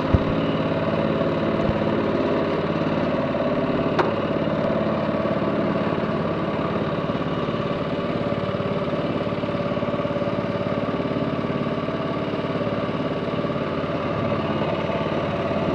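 Boat engine running steadily at an even pitch, with a single sharp click about four seconds in.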